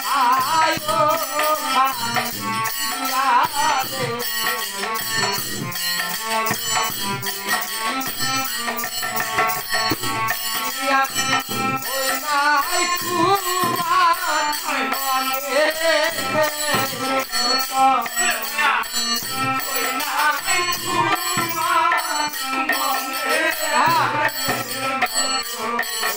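Bengali folk song with a man's voice singing over a harmonium, with a laced barrel drum beating and small hand-held percussion shaken in a steady rattling rhythm.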